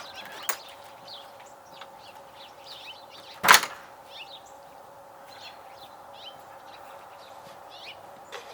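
Birds chirping in short, scattered calls over a faint steady hum, with one loud, brief noise about three and a half seconds in.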